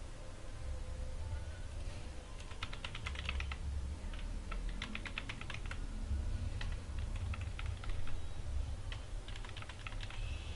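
Typing on a computer keyboard: quick runs of key presses with short pauses between them, beginning about two seconds in, over a low steady hum.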